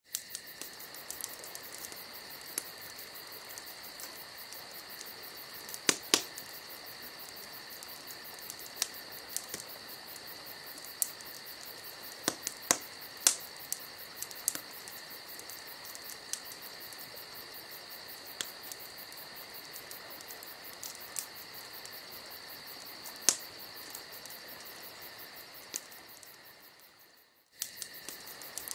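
Crickets chirping in a steady, high-pitched, fast-pulsing drone, with a few sharp clicks over it. The sound fades out briefly near the end, then comes back.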